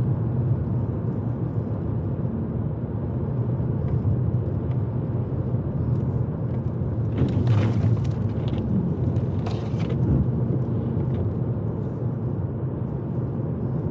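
Car driving, a steady low engine and road rumble with tyre noise, with a few brief clicks or knocks about halfway through.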